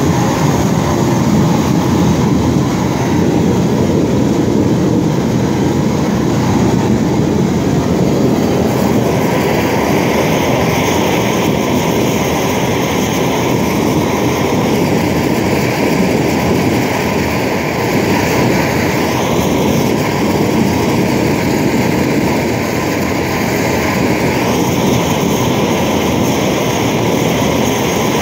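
Large propane torch burning with a loud, steady rushing noise as its flame heats stainless steel. The hiss in the upper range grows stronger about nine seconds in and again near the end.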